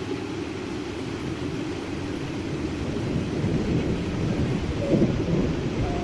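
Heavy rain hissing steadily, with a low roll of thunder that swells to its loudest about five seconds in.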